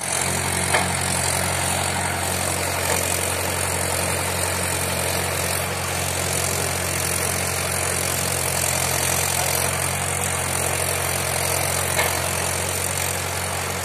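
Mahindra 575 tractor's diesel engine running at a steady speed while pulling a trailer loaded with sugarcane, an even low drone. Two light knocks, about a second in and near the end.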